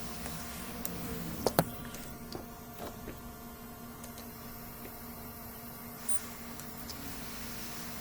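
Steady hiss and hum of bench equipment. Two sharp clicks come about one and a half seconds in, followed by a few small ticks. The hiss thins out for a few seconds and comes back with another click.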